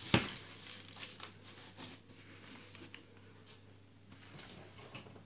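A sharp click as a power bank with a plugged-in USB tester is handled and set down, followed by faint crinkling of a plastic bag and small taps for a couple of seconds. Then only a low steady hum, with one small tick near the end.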